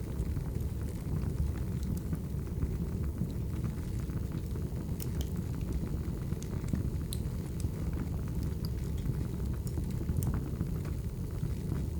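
Wood fire burning with a steady low rumble and scattered small crackles and pops.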